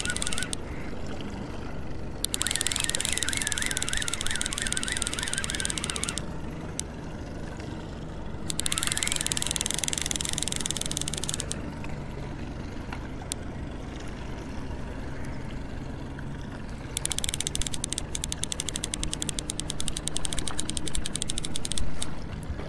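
Trolling reel being cranked in bursts of a few seconds with pauses between, a fast clicking rattle that is densest near the end, as a striped bass on leadcore line is reeled in. A steady low hum runs underneath.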